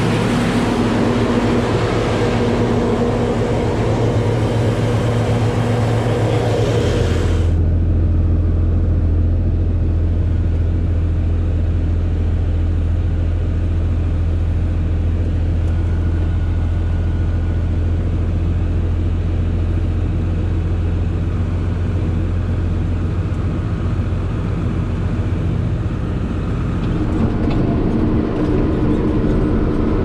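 Diesel engines of a self-propelled crop sprayer and a John Deere 4640 tractor running as the stuck sprayer is pulled free. For the first seven seconds, a loud engine with a rough, noisy edge runs close to the sprayer's wheel; after a cut it becomes a steadier deep engine drone.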